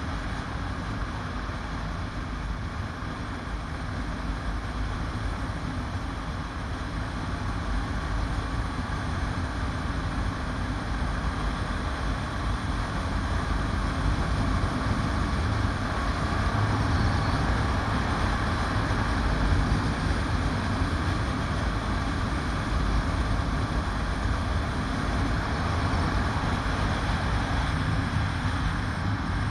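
Motorcycle riding at steady road speed, heard from a bike-mounted camera: engine and wind rush blend into a steady low rumble that grows somewhat louder about halfway through.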